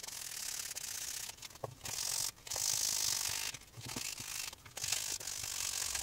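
Waterproof #400 sandpaper rubbing back and forth along the cut edge of chrome-tanned leather, a run of scratchy strokes about a second long with short breaks between them, sped up in fast-forward. It is the edge being smoothed before an edge finish goes on.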